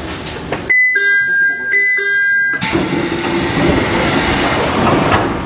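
Door chime of a JR 719 series 5000-subseries train: a two-note electronic chime, high then lower, played twice, followed by the doors working with a steady rush of air and a knock near the end.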